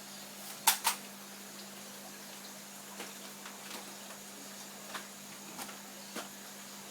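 Two sharp clicks close together just under a second in, then a few faint scattered ticks, over a steady low electrical hum.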